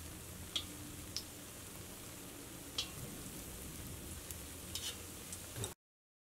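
Small banana-and-wheat batter fritters deep-frying in hot oil in a wok: a steady, soft sizzle with a few short sharp ticks. The sound cuts off suddenly near the end.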